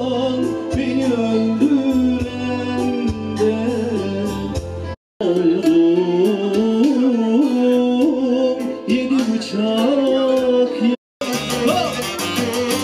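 Music with a singing voice over a steady beat. It drops out briefly twice, about five and about eleven seconds in.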